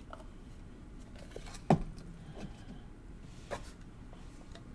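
Trading cards and their packaging being handled on a tabletop: a sharp knock a little under two seconds in, a softer click later, and faint handling noise between.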